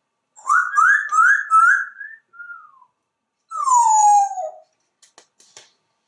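African grey parrot whistling: four quick rising whistles in a row, a short falling note, then one long whistle sliding down in pitch, with a few faint clicks near the end.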